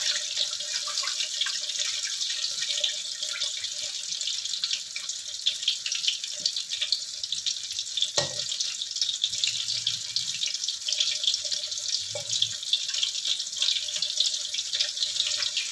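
Cempedak fritters deep-frying in hot oil in a wok: a steady sizzle full of small crackles. A metal spatula knocks against the wok now and then, most clearly about eight seconds in.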